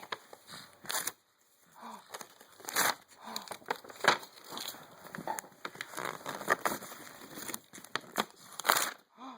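A girl's fake sneezes and a baby's breathy laughter, heard as a string of short noisy bursts.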